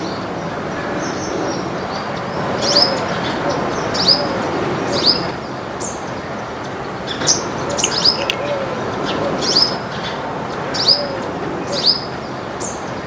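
Small songbirds chirping: about a dozen short, sharp chirps that sweep downward, spaced irregularly over a steady background hum.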